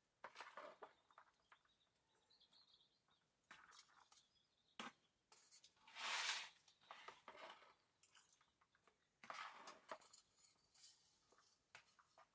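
Near silence with faint scrapes, taps and rustles of chopsticks stirring boiled noodles in a plastic bowl. One short, louder rustling hiss about six seconds in.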